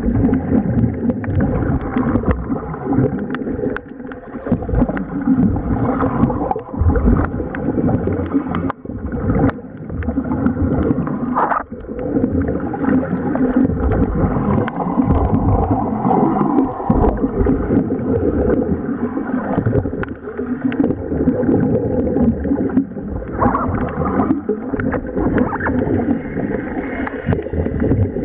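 Air venting from a tank-fed bubble diving helmet, bubbling and gurgling continuously underwater, its loudness rising and falling.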